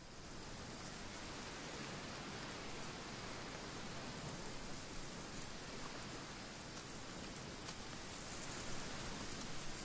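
Steady wind ambience: an even rushing hiss with faint crackles in the high end.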